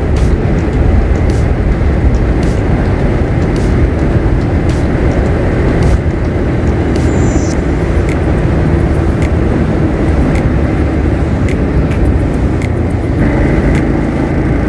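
Motorcycle riding along, with steady engine and wind noise over the rider's microphone.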